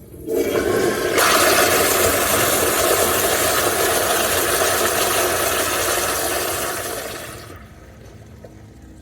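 A toilet flushing: a loud rush of water starts just after the beginning, grows louder about a second in, holds steady, then fades away about seven and a half seconds in.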